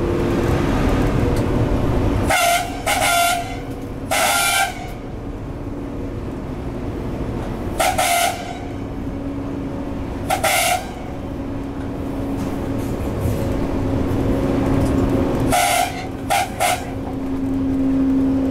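Eurosprinter class 120 electric locomotive's horn sounding a series of short toots, singly and in groups of two or three, over the steady running noise and hum of the locomotive in motion.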